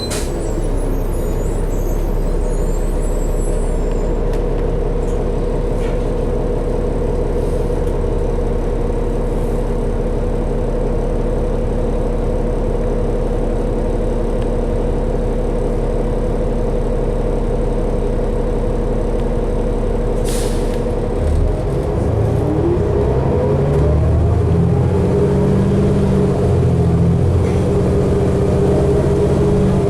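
Diesel engine of a 2012 New Flyer D60LFR articulated bus idling steadily. Air hisses right at the start and again about 20 seconds in, typical of the air brakes. About 21 seconds in the bus pulls away: the engine grows louder and rising whines glide upward as it accelerates.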